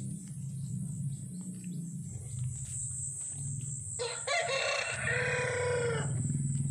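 A rooster crows once, a single call of about two seconds starting about four seconds in. Under it run a steady low hum and a thin high whine.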